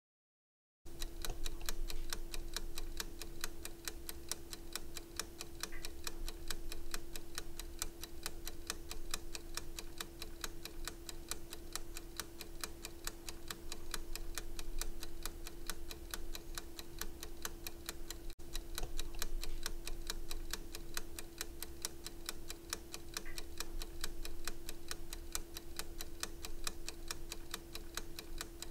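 A quick, even ticking sound effect over a steady hum, starting about a second in and cutting out for an instant about two-thirds through.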